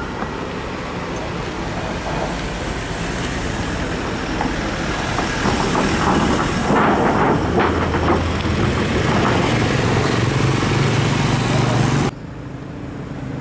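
Heavy diesel engine of a mobile crane running under load while it hoists a cut steel bridge girder, growing louder with a deeper hum from about six seconds in, then dropping off sharply near the end.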